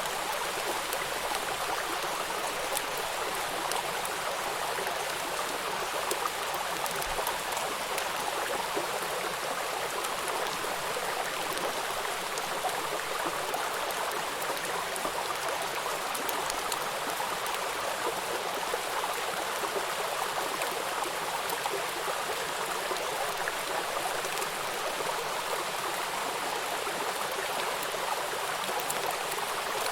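Steady rain falling: an even hiss of rain with fine scattered drop patter, unchanging throughout.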